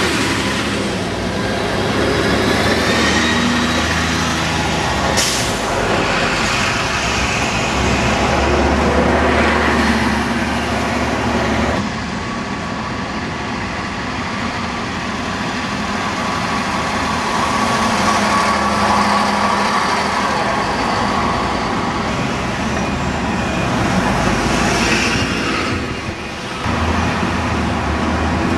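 Diesel bus engines running and pulling away amid street traffic, with a short air hiss about five seconds in, typical of bus air brakes. The sound changes abruptly twice, at about twelve seconds and near the end.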